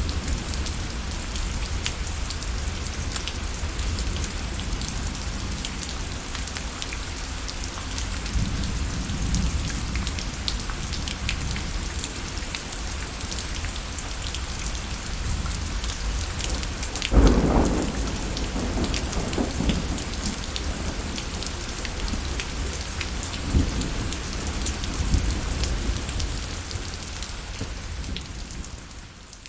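Steady rainfall with many close drops ticking. About 17 seconds in, a loud low rumble rises and dies away over a couple of seconds, with a weaker one later, and the rain fades out near the end.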